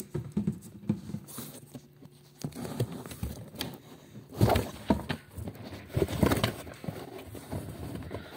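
A cat moving about inside a cardboard box: soft scuffing and patter of paws on cardboard and fur rubbing close against the microphone, with two louder bumps about four and a half and six seconds in.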